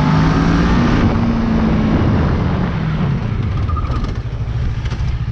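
Motorcycle engine running under a steady rush of wind noise; the engine note falls over the first two or three seconds as the bike slows, then holds low and even.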